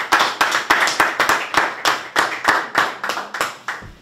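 Hands clapping in applause, about four to five claps a second, dying away just before the end.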